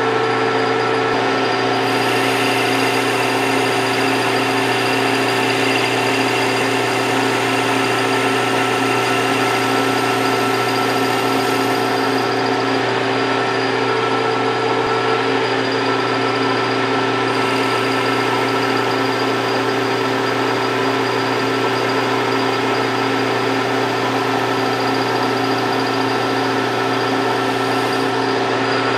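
Metal lathe running under power with a steady gear whine while the tool bit takes a turning cut on a small bar. A high hiss comes and goes twice, each time for about ten seconds.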